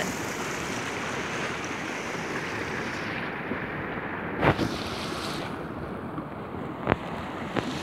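Creek water running through an open channel under shelf ice, a steady rush, broken by three short sharp knocks, about four and a half seconds in and twice near the end.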